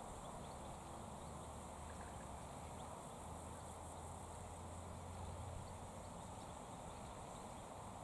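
Faint outdoor ambience: a steady hiss with a low hum that grows stronger around the middle, and a few faint high ticks.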